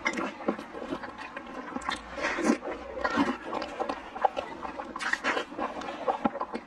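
Wet, close-up chewing and lip-smacking of sauce-coated braised pig skin, with sticky squelches as gloved hands tear at the meat. Louder squelchy bursts about two, three and five seconds in.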